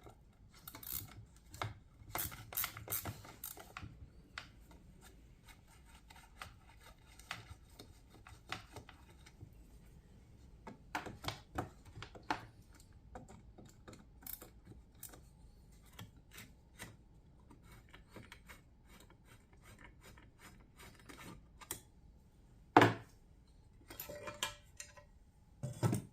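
A screwdriver working the flat-headed screws out of a chainsaw's starter cover, with scraping, small clicks and rattles as the cover and parts are handled, and a few sharp knocks, the loudest near the end as something is set down.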